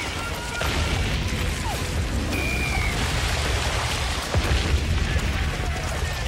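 Battle sound effects of shell explosions over a constant low rumble, with scattered sharp cracks and a few short high whistles.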